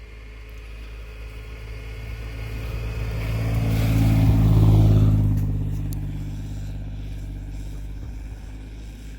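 A Toyota FJ Cruiser's 4.0-litre V6 drives past. The engine and tyre noise build to a peak about halfway through, then fade away.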